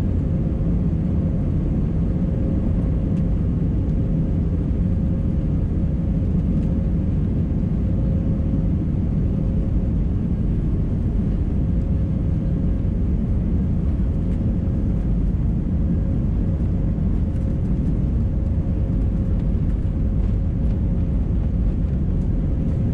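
Steady cabin noise of an Airbus A319: a constant low rumble of the CFM jet engines and airflow with a faint steady hum, holding level throughout.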